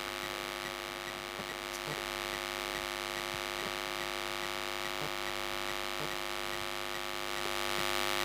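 Steady electrical hum: a constant buzz with many evenly spaced overtones over a steady hiss.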